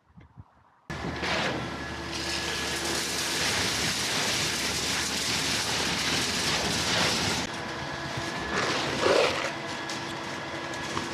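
Concrete truck machinery at a foundation pour, starting suddenly about a second in and then running steadily and loudly with a steady hum over a wide noise.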